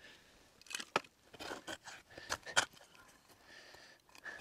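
Several short clicks, knocks and scrapes of small objects being handled by hand, spread unevenly through the moment.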